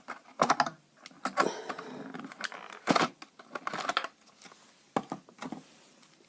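Irregular plastic clicks and taps of a Bumblebee fidget cube toy being picked up and handled.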